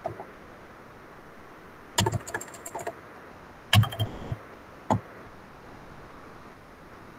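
A few sharp clicks and knocks over a faint steady hiss: a quick cluster about two seconds in, another a little before four seconds, and a single knock near five seconds.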